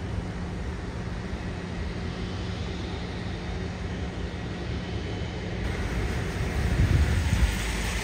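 Airbus A320neo jet engines (Pratt & Whitney geared turbofans) at takeoff thrust, a steady distant rushing noise as the airliner lifts off and climbs. The deep rumble swells near the end.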